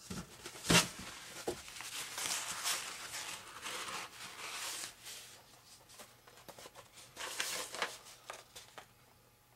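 A paper tissue rubbing and rustling as excess glue is wiped off a foam model-airplane wing, with a sharp knock about a second in and a few handling knocks of the foam parts near the end.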